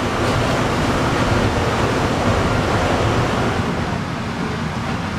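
Steady rumble and rush of a metro train running, heard from inside the passenger car.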